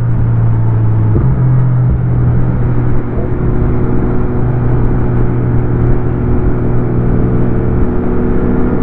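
Motorcycle engine running at a fairly steady speed while riding, heard from on the bike, its pitch shifting slightly about a second in.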